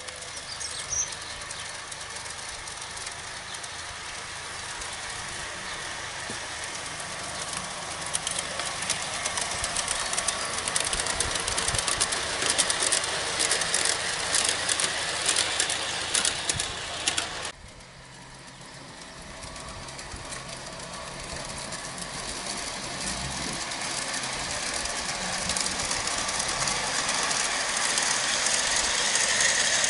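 G-scale model train running on garden-railway track, with a rapid clatter of wheels over the rail joints as the wagons pass. This stops suddenly about halfway through, and a steady running noise then grows louder toward the end.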